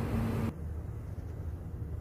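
Steady low rumble of distant city traffic heard from high up, with no distinct events. About half a second in, a steady hum and hiss cut off abruptly, leaving only the low rumble.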